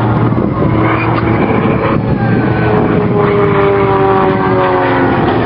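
Propeller engines of an Extra 300S aerobatic plane and its large-scale model flying aerobatics together, droning steadily. Several engine tones slide slowly in pitch, one falling gently through the middle as the aircraft manoeuvre.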